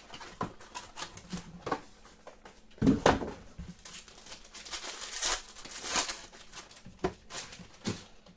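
A trading-card pack being handled and opened: scattered clicks and taps, one heavy thump about three seconds in, and two crinkly rustles of the wrapper around five and six seconds in.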